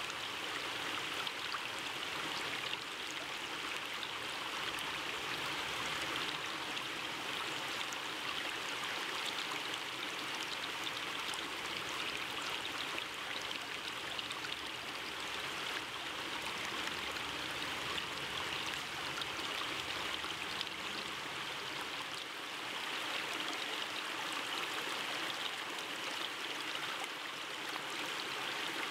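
Steady rushing of running water, with faint scattered ticks.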